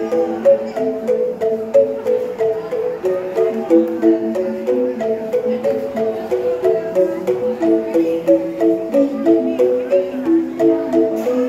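Angklung, tuned bamboo rattles shaken to sound their notes, played as an ensemble: a steady melody of short held notes with several pitches sounding together.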